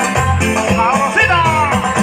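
Tropical Latin band music with a steady dance beat, bass and a shaker; a sliding melodic line bends up and down about halfway through.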